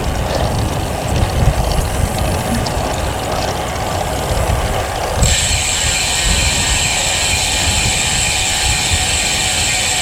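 Wind rumbling on the microphone of a moving road bike; about five seconds in, the rear freehub's ratchet starts a steady, high-pitched buzz as the rider stops pedalling and coasts.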